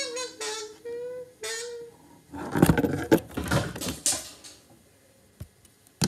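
The last ukulele note rings out under a few short, high, squeaky sliding sounds. Then comes a burst of rustling handling noise, and a single click near the end.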